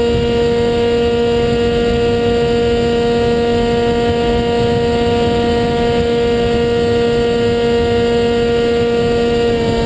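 HobbyKing Bixler RC plane's brushless electric motor and pusher propeller running at steady throttle: a constant whining hum with overtones that shifts slightly in pitch near the end, over wind rushing past the onboard camera.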